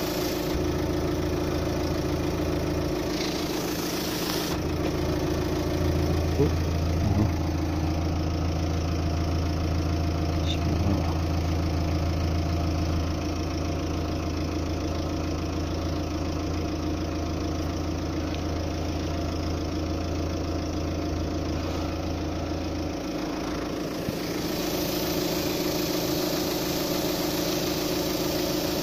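Car engine idling steadily with the exhaust tailpipe stopped up by a rag, forcing exhaust gas out through the seams of an aftermarket backbox silencer, which leak at front and back. The deep low part of the idle note eases about 23 seconds in.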